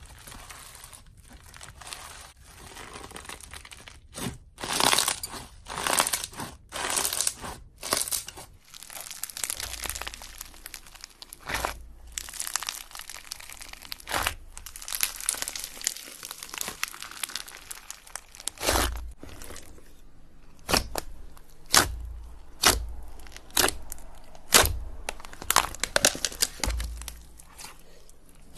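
Hands squeezing and kneading slime mixed with foam beads, giving dense crackling and crunching. In the second half this gives way to a run of sharp pops, roughly one every second, each with a soft low thump.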